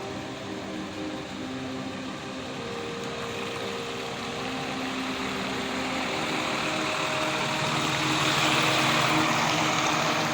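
Rushing flash-flood water, a steady noise that swells louder over the second half, with a low, steady, motor-like hum underneath.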